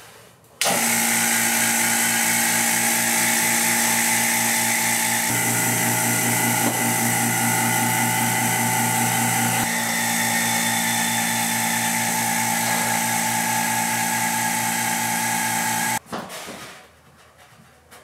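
Small electric vacuum pump switched on about half a second in, running steadily and then switched off near the end, winding down. It is drawing a vacuum through the suction cups to hold a surfboard blank down. Its tone is deeper for a few seconds in the middle.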